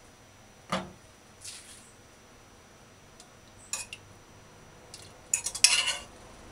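A metal fork clinking against a metal pot and a ceramic plate as boiled green bananas are lifted out and set down. There is a single knock about a second in, another short clink near four seconds, and a louder run of clatters near the end.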